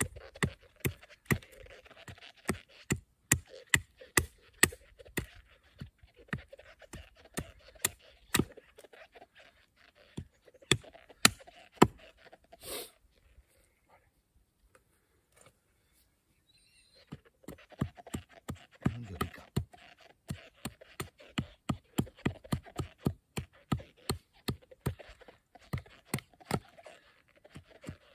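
Small hatchet repeatedly knocking a stick of wood down onto a log to split it into kindling: sharp wooden knocks, about two or three a second, pausing for a few seconds near the middle.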